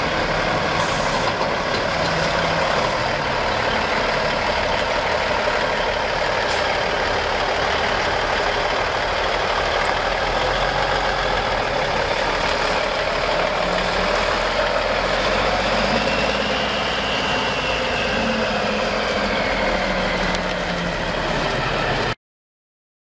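Diesel engine of a 1989 Peterbilt 377 truck running as the truck drives slowly, with a faint whine that rises and falls about two-thirds of the way through. The sound cuts off suddenly near the end.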